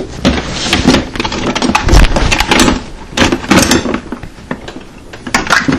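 Hand tools clattering and knocking as they are rummaged through: a run of irregular metallic clicks and knocks, the loudest about two seconds in.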